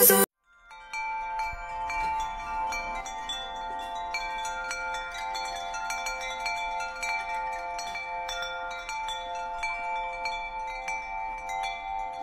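Wind chimes tinkling, with many small strikes and overlapping ringing notes. They start after a brief silence near the beginning.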